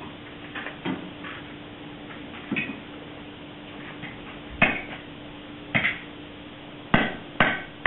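Blacksmith's hammer striking hot iron on an anvil while drawing out a leg of a trivet: a few light taps, then louder ringing blows about a second apart in the second half.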